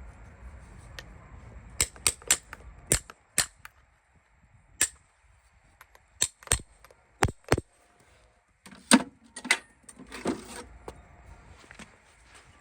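Farrier's tools working on a horse's hoof: a series of sharp, irregular snaps and clicks, some in quick pairs, with a short stretch of rougher scraping about three quarters of the way through.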